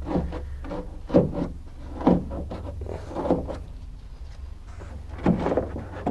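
Plastic upholstery hook tool pushing headliner cloth into the Beetle's roof edge: a series of short scrapes and rubs, roughly one a second, over a low steady hum.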